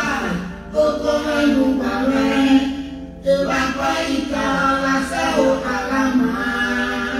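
A voice singing a chant-like melody in long held phrases.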